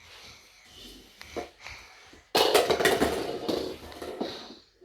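A sudden burst of clattering with many quick knocks, starting about halfway through and lasting nearly two seconds before it cuts off.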